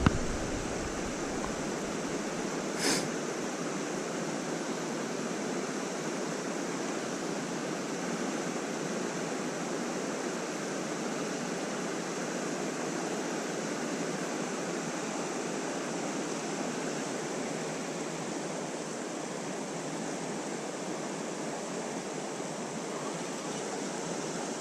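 Steady, even rush of flowing creek water, with a single sharp click about three seconds in.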